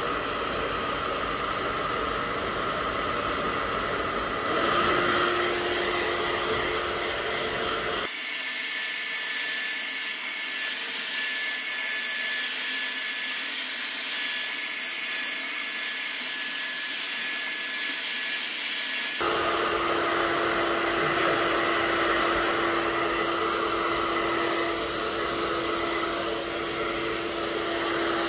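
Handheld hair dryer blowing steadily while drying wet hair, a continuous rush of air with a low motor hum that comes and goes. For about ten seconds in the middle the sound turns thinner and hissier.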